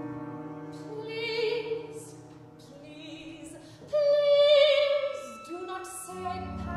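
Classical art song: a woman sings long held notes with vibrato in an operatic style over low sustained instrumental accompaniment, with the loudest note beginning about four seconds in.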